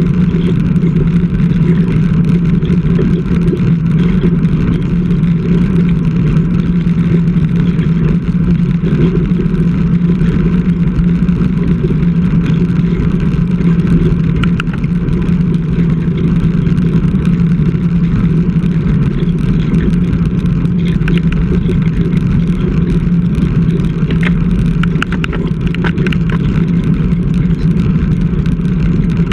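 Steady wind and road rumble on a bike-mounted GoPro while riding a road bike, heard as a constant low drone.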